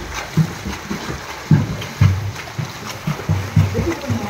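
Swimmers kicking and stroking through pool water: continuous splashing, with irregular slaps of feet and arms striking the surface.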